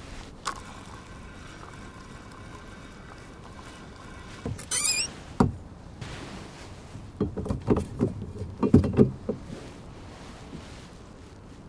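Rowboat knocks and creaks: a faint click with a thin ringing tone near the start, a short high squeal about five seconds in, then a sharp knock and a run of knocks a couple of seconds later.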